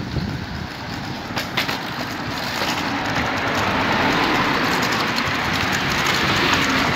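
A vehicle passing close by, its noise building from a couple of seconds in and loudest near the end before it falls away.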